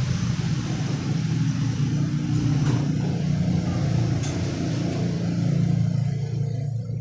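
A motor vehicle engine running steadily with a low hum, easing off near the end, with a couple of faint light clicks in the middle.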